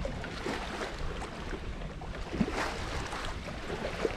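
Wind buffeting the microphone and water rushing past the hull of a small sailboat under way, as a steady noisy rumble with a few faint knocks.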